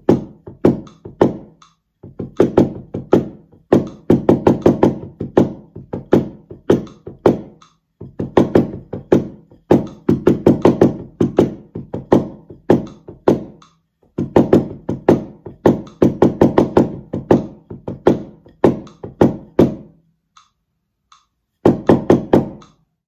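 Taiko rhythm at 80 bpm played with wooden bachi on a towel-covered drum: fast runs of stick strokes in repeating phrases with short gaps. It stops about 20 seconds in, then one brief flurry of strokes comes near the end.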